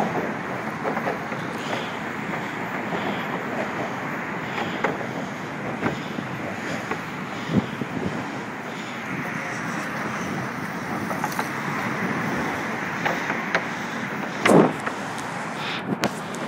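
Steady road and engine noise of a moving car heard from inside it, with scattered light clicks and rattles. A short, louder knock comes near the end.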